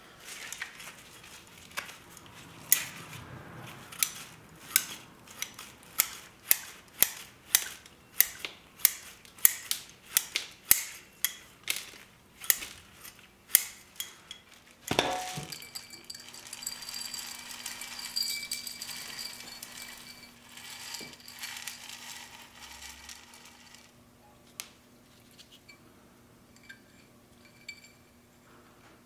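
Bonsai scissors snipping through a juniper's root ball, a crisp metallic snip about once a second, followed by soft rustling of roots and soil.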